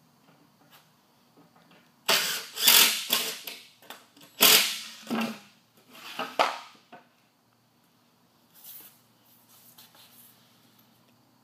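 Cordless drill driving screws into the wooden boards of a box, in three loud, rough bursts about two, four and a half, and six seconds in.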